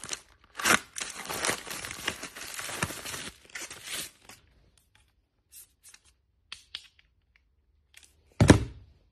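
A foil bubble mailer being torn open and clear plastic film pulled off a hand mirror: dense tearing and crinkling for about four seconds. A few light ticks follow, then one sharp thump near the end.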